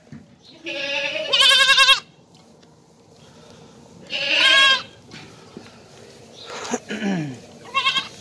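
Goat kid bleating, about four calls with a wavering pitch. The first call is the longest and the loudest. A lower call near the end slides down in pitch.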